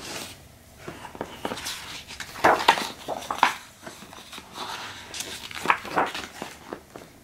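Hardcover picture book being handled: the cover is opened and the pages turned, giving a series of paper swishes and soft knocks.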